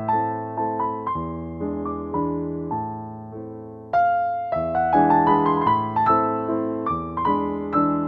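Background piano music: a gentle melody of struck notes that fades just before the middle, then starts a new phrase.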